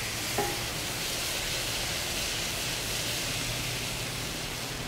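Roasted semolina (rava) and ghee in a hot pan sizzling steadily as boiled water is added a little at a time and stirred in.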